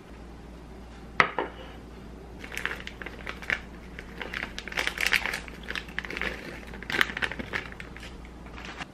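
A plastic bag of shredded pizza cheese crinkling as it is handled and shaken out, cheese dropping into a hollowed squash, in irregular bursts. A single sharp knock comes about a second in.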